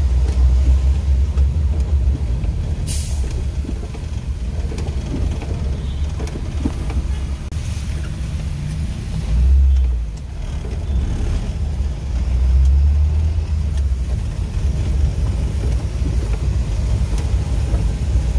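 In-cabin sound of a Maruti Suzuki Gypsy King driving on a wet road in rain: a steady low rumble of engine and road with tyre and rain hiss over it. A short sharp hiss sounds about three seconds in, and the rumble swells twice, briefly near the middle and again a few seconds later.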